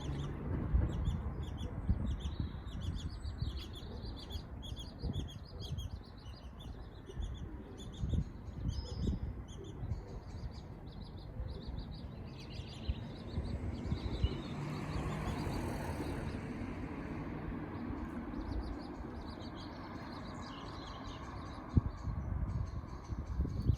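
Birds chirping in quick, repeated short high calls, over a low rumble. A broader rushing noise swells and fades about halfway through.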